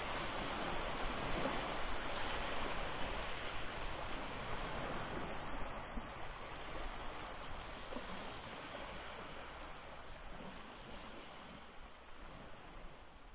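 Ocean surf washing onto a beach as a steady rush, slowly fading out toward the end.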